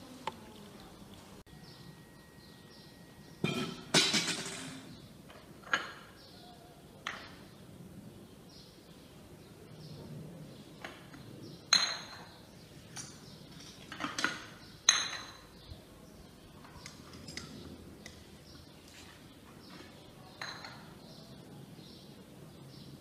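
Porcelain teacups and saucers clinking as they are handled and set down on the table: a string of short sharp clinks, the loudest about four seconds in and again around twelve and fifteen seconds in.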